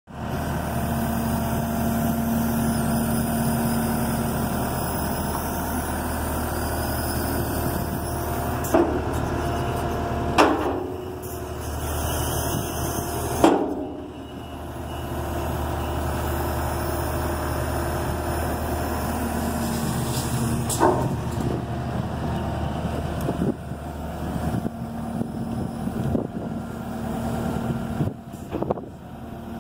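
A Kubota SVL90-2 compact track loader's diesel engine running steadily under hydraulic load as the high-dump bucket is raised and tipped. Several sharp knocks mark the bucket and loader arms reaching the ends of their travel.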